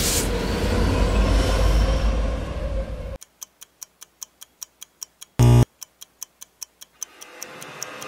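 A train passing with a steady noisy rumble, cut off abruptly about three seconds in. A clock then ticks quickly and evenly, about four ticks a second. A short, very loud buzz comes about five and a half seconds in, and a low sound swells in near the end.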